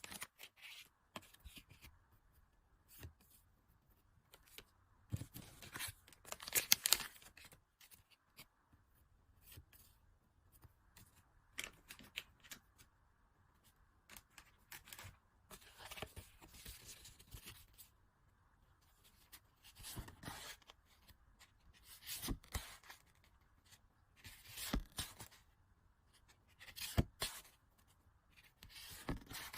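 Merchandise packaging being handled and unwrapped by hand: repeated short bursts of crinkling, rustling and tearing, every second or two.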